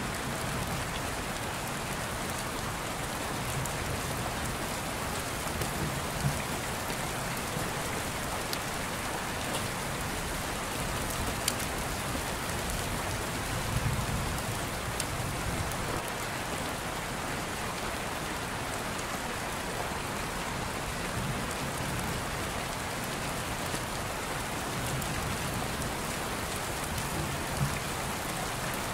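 Steady, even hiss of falling rain, with a few faint ticks over it.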